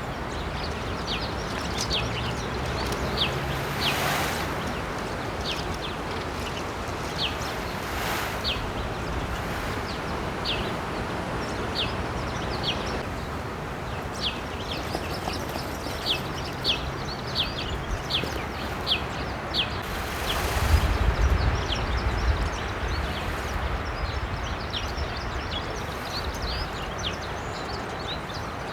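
Small birds chirping throughout in many short, quick chirps over a steady outdoor hiss, with brief rustling bursts about four and eight seconds in and a louder one with a low rumble around twenty seconds in.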